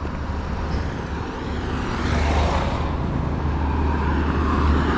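Road traffic noise with a steady low rumble, swelling about two seconds in as a vehicle draws near.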